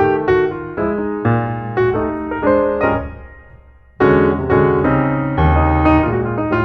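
Background piano music: struck notes and chords in a steady pulse. It fades almost out about three seconds in and comes back in loudly at four seconds.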